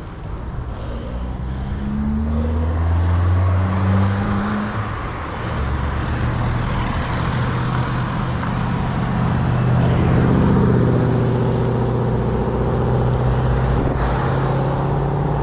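Motor vehicle engines on the road, one for the first five seconds or so and a second from about five seconds in, with wind noise on the microphone.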